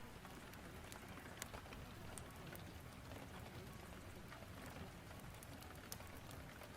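Steady rain, faint and even, with a few sharp crackles from a fireplace scattered through it.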